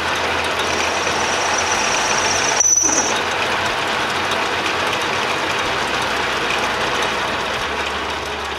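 Atlas metal lathe running while a cutting tool puts a slight chamfer on the edge of the workpiece in the chuck, with a thin high-pitched whine from about half a second to three seconds in.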